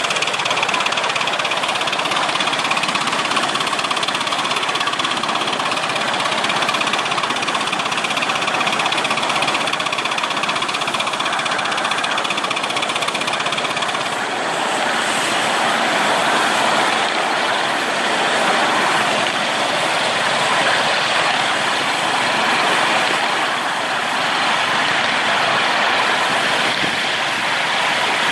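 Miniature live-steam model of a GWR 1400-class tank locomotive running steadily along its track, heard from on board: a continuous mix of steam exhaust and wheels running on the rails.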